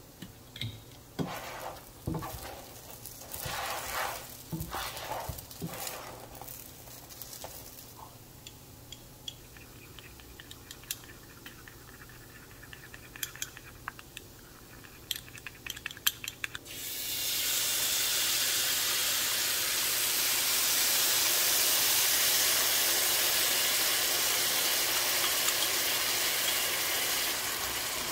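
Metal utensils clinking and scraping against a small ceramic ramekin as a gochujang and soy sauce is stirred. About seventeen seconds in, a steady sizzle starts suddenly as the sauce hits the hot frying pan of rice cakes.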